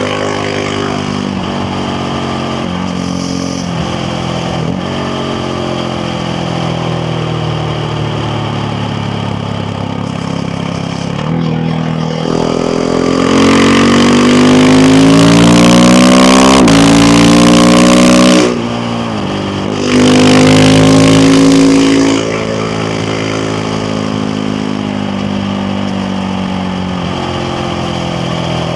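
KTM Duke 690R's single-cylinder engine running at a steady cruise, then pulling hard under full throttle about twelve seconds in with its pitch rising. It shifts up near eighteen seconds, gets another short burst of throttle, and settles back to steady cruising.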